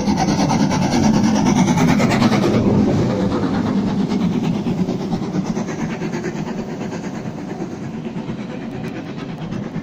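LMS Jubilee Class 45690 Leander, a three-cylinder 4-6-0 steam locomotive, passing close below at speed, loudest in the first two and a half seconds. Then its coaches roll by over the rails, a steadier rumble that slowly eases off.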